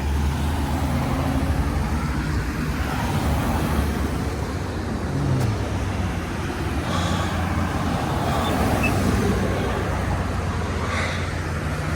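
Road traffic: motor vehicles running past, with a steady low engine rumble.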